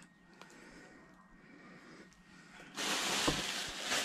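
Close rustling of toys and packaging being handled, starting abruptly near the end after a quiet stretch with a few faint clicks.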